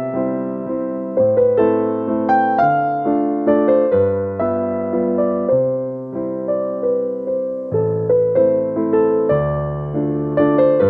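Background music: a piano-like keyboard playing a melody of struck notes over low, changing bass notes.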